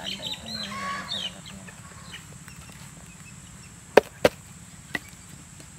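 Two sharp knocks about a third of a second apart, then a lighter one, from a plastic nursery pot and potting soil being handled; faint chicken clucks and rustling in the first second.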